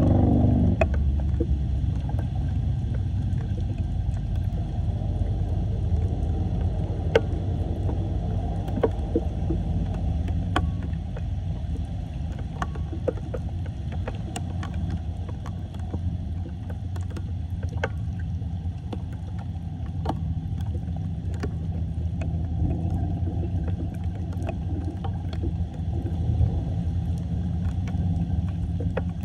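Floodwater running into a street drain with a steady low rush, with scattered light splashes and knocks over it.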